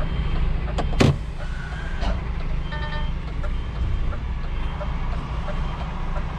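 Truck engine running with a steady low rumble. There is a sharp knock about a second in and a short beep near the middle.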